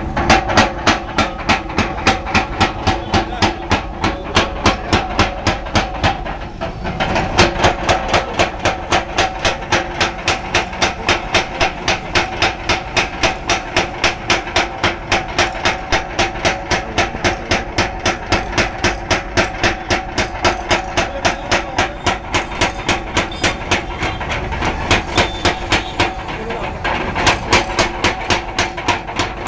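45 kg Hercules spring-type mechanical power hammer running, its ram striking a red-hot steel bar on the lower die in rapid, evenly spaced blows, a few a second, over a steady hum from its belt drive.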